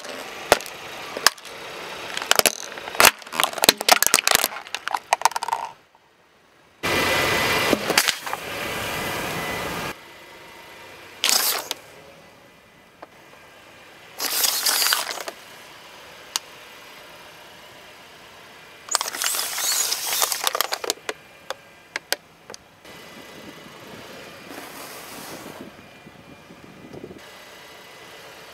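Car tyre rolling over and crushing plastic objects: clusters of sharp cracking and snapping plastic in the first few seconds, then a few seconds of steady rushing noise, then several separate shorter bursts of crunching.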